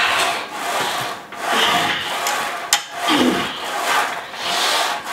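Heavy, strained breathing while bench-pressing a barbell: loud rasping breaths in and out, about one a second, with a short voiced grunt about three seconds in.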